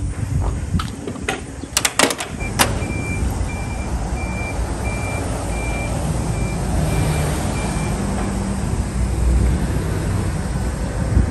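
A few sharp metallic clanks from the truck's side gate and latches, then a forklift's warning beeper sounding about twice a second for several seconds. Under it all is a steady low engine rumble.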